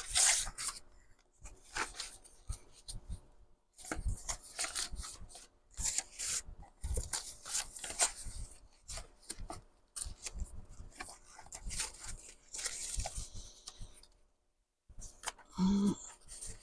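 Loose sheets of paper rustling and sliding on and off as they are handled and sorted through. A brief murmur of voice comes near the end.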